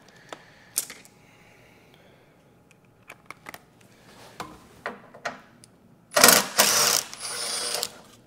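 Handheld cordless power tool backing out a bolt from the front-end core support: a few scattered clicks of handling, then the tool runs loud for about a second and goes on more quietly for about another second.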